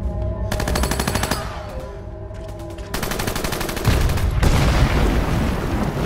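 Film battle soundtrack: two bursts of rapid machine-gun fire, the first about half a second in lasting about a second, the second starting about three seconds in, over a low, continuous rumble of battle.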